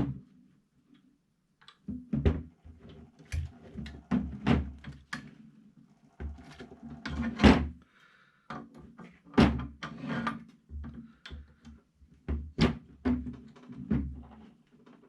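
Irregular metal knocks, clicks and clatter of kayak cart axle parts being handled while an axle locking pin is lined up and pushed into place, the loudest knock about halfway through.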